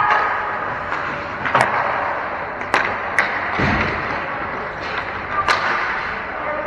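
Ice hockey play: several sharp clacks of sticks striking the puck, and a low thud about three and a half seconds in, over the steady background noise of an indoor rink.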